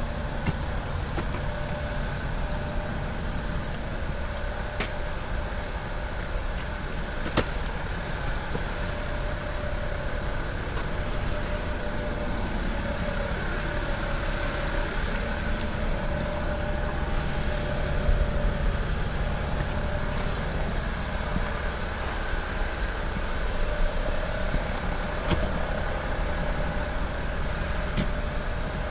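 A motor-vehicle engine running steadily at idle, with a few sharp clicks.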